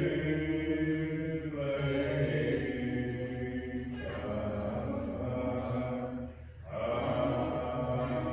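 A slow hymn with long held notes that change every second or two, and a brief break about six and a half seconds in.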